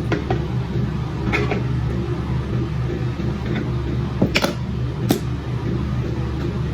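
Microwave oven running with a steady electrical hum, with a few sharp clicks and clinks about a second and a half in and again near four and five seconds.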